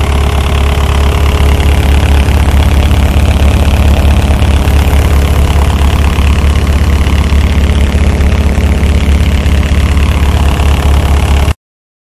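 Diesel engine of a 2007 Komatsu SK815-5N skid steer running steadily, heard up close at the open engine bay, with a deep even hum; it cuts off abruptly near the end.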